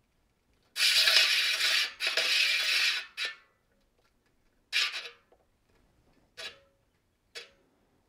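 Bicycle rim scraping against a truing stand's roundness indicator as the wheel turns: two long scrapes, then a few short rubs at intervals. The rubs mark high spots where the rim is out of round.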